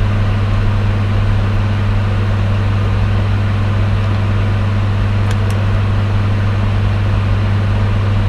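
A steady, loud low hum, one deep tone with a fainter overtone, unchanging throughout, with two faint ticks about five seconds in.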